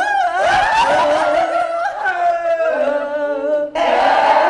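A voice singing a melody over musical accompaniment. About three-quarters of the way through, the sound cuts abruptly to a fuller, louder mix of singing with a band.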